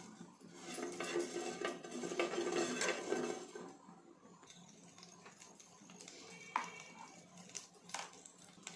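Sesame seeds frying in hot oil in a nonstick pan, with a steel spoon scraping across the pan as it spreads them during the first few seconds. Afterwards a quieter sizzle with a few sharp clicks.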